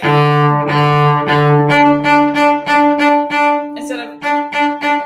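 Cello played in broad, separate bow strokes swung from the whole upper arm, about two strokes a second. A low note sounds under a higher one for the first couple of seconds, then higher notes ring together.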